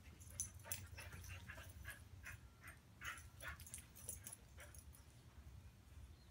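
Brittany puppies making faint, short yips and whines while they chase each other in play. There are about a dozen quick sounds in a rapid run, and they stop a little before five seconds in.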